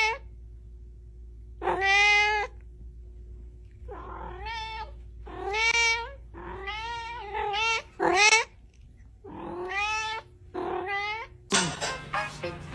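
A cat meowing over and over: about eight drawn-out calls, some wavering in pitch. A different, noisier sound cuts in near the end.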